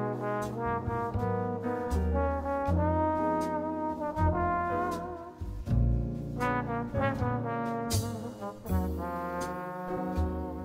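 Jazz background music: a trombone plays a slow melody over a bass line.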